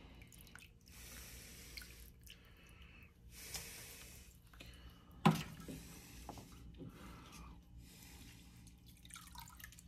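Broth dripping and splashing as boiled chicken bones are lifted out on a wire skimmer and tipped into a metal bowl, with one sharp knock about five seconds in.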